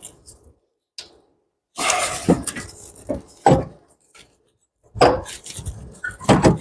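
An alternator being worked out of its mount by hand in a cramped engine bay: irregular metal clunks, clinks and scrapes in several short bursts as it is twisted and pulled loose.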